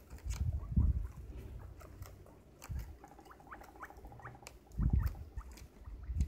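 Several guinea pigs crunching and chewing raw cauliflower, a scatter of crisp clicks, with a few short rising squeaks in the middle. Low thumps about a second in and again near five seconds are the loudest sounds.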